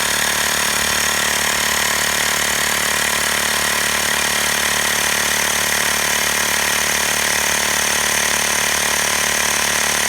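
Xiaomi Mi portable electric air compressor running steadily with a fast, even pulse as it pumps air into a car tyre, set to cut off at 35 psi.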